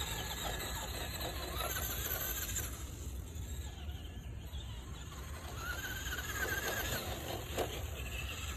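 Traxxas Rustler XL-5 RC truck's stock brushed electric motor and gears whining as it accelerates across grass on a 2S LiPo, the whine rising in pitch about two seconds in and again around six seconds. A steady low rumble underneath, and a single knock near the end.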